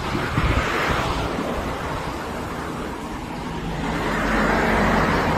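Wind rushing over a hand-held phone's microphone, mixed with road traffic noise, growing louder about four seconds in.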